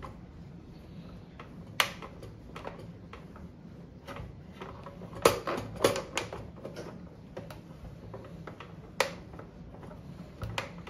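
Sharp clicks and knocks of plastic casing parts on an overlock sewing machine as they are handled and fitted back together. One knock comes about two seconds in, a cluster of louder ones at five to six seconds, and another near nine seconds.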